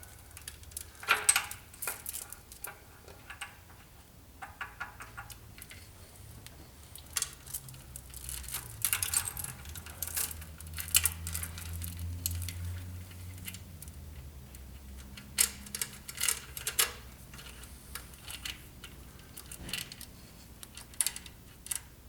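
Timing chains and metal engine parts clinking and rattling as they are handled and lifted into place, in irregular light metallic clinks. A faint low hum sits under them through the middle.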